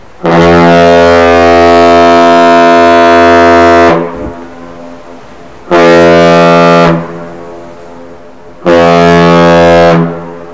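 The ship's horn on the Great Lakes freighter Paul R. Tregurtha sounds one long, deep blast of about four seconds, then two short blasts. This long-short-short pattern is the customary master's salute. Each blast trails off with a brief echo.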